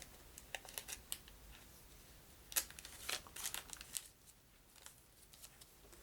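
Small cards being gathered and handled on a table: a scattering of soft taps and rustles, the loudest about two and a half seconds in, quieter for the last couple of seconds.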